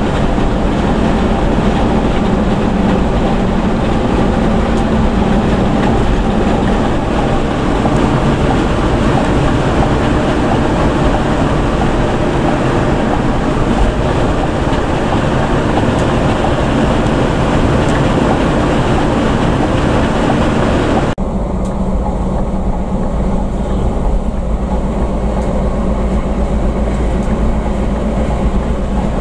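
Scania bus running at highway speed, heard from inside the cab: a steady engine drone with road and wind noise. About two-thirds of the way through the sound abruptly turns duller, with less hiss.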